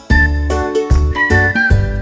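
Upbeat background music: a whistled tune over jingly notes and a pulsing bass line with a steady beat.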